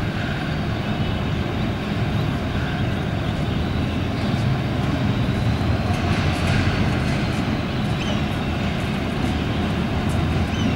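HGMU-30 class diesel-electric locomotive No. 8220 running steadily as it creeps up to the platform: an even, low engine rumble.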